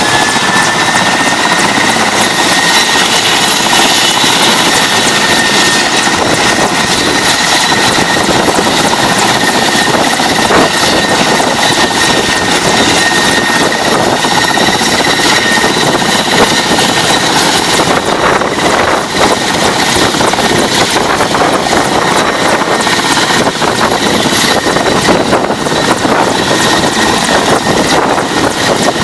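Helicopter engine and rotor running loudly and steadily, with a high whine over the rotor noise that rises slightly in pitch about a second in.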